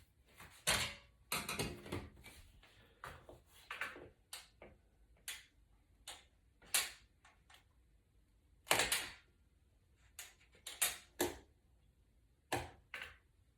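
Irregular light clicks, taps and short rustles of a replacement iPad digitizer screen and its small plastic parts being handled and fitted by hand.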